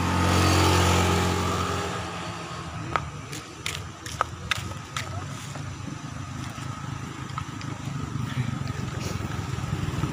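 A motor vehicle passing, its low engine rumble swelling in the first second and fading away over the next two. A few sharp clicks follow.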